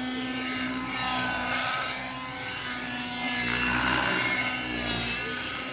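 RC helicopter flying aerobatics, its engine and rotor pitch rising and falling as it manoeuvres, with a louder, rougher stretch past the middle.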